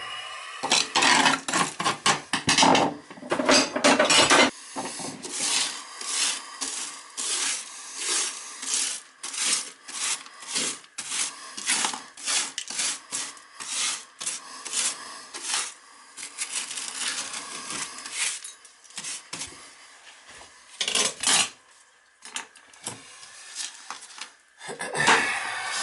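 Repeated scraping or rubbing strokes, quick and fairly regular at about two a second, then sparser with a short lull before a few louder scrapes near the end.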